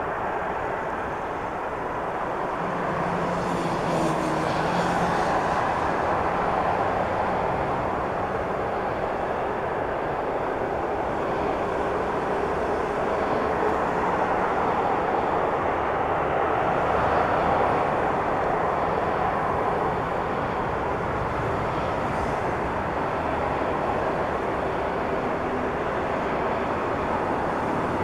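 Airliner jet engines running as a steady rushing roar that swells slightly a couple of times, typical of a plane on its take-off run.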